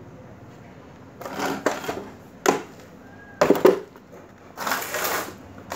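Rigid PVC conduit and a wooden board being handled on a concrete floor: a few irregular knocks and scrapes about a second in and in the middle, then a longer rough scraping sound near the end.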